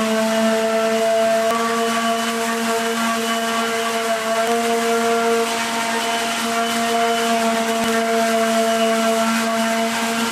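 INGCO palm sheet sander running steadily on plywood: a constant motor hum that steps slightly in pitch a couple of times, over the hiss of sandpaper on the wood.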